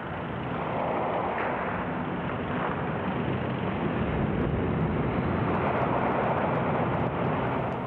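Steady, muffled rumbling noise with no distinct blasts, shots or voices standing out.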